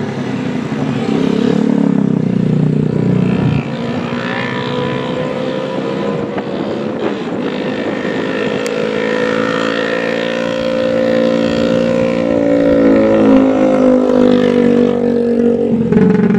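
Steady engine drone that rises slowly in pitch and grows louder near the end, after a heavier rumble that cuts off about three and a half seconds in.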